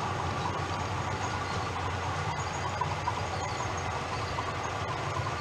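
OO gauge model train running, its rake of wagons rolling steadily along the track with a low hum and a few faint clicks.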